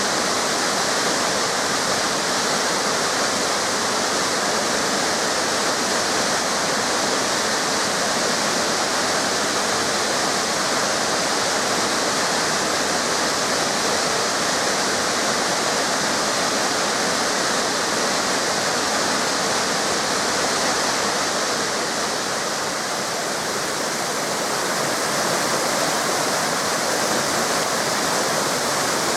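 Small waterfalls and cascading river water rushing steadily, an even hiss of falling water, dipping slightly in level about three-quarters of the way through.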